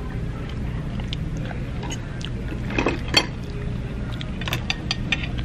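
Crab leg shells being cracked and picked apart by hand: a few sharp cracks and clicks, the strongest about three seconds in, over a steady low hum.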